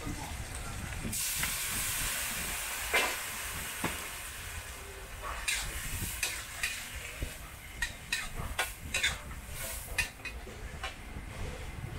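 Greens and pork stir-frying in a hot metal wok. A loud sizzle starts about a second in and gradually dies down. In the second half a metal spatula scrapes and clanks against the wok many times as the food is tossed.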